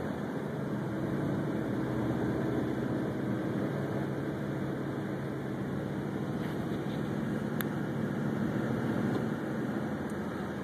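Car driving on a wet road, heard from inside the cabin: steady engine hum and road noise.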